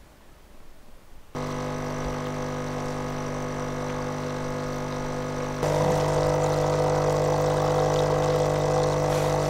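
An engine idling steadily. It comes in abruptly about a second in and gets louder a little past halfway.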